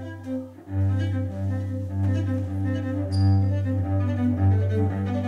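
Cello bowed in a slow passage of long, low notes, with brief breaks where the bow changes direction.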